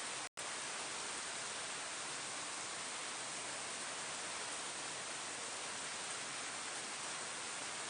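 Steady rain falling on leaves, an even hiss with no separate drops standing out. The sound drops out completely for an instant about a third of a second in, then resumes unchanged.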